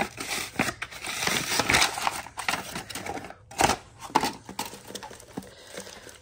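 Cardboard packaging being pulled and torn off a steel trailer hitch: an irregular run of crinkling, crackling and ripping noises.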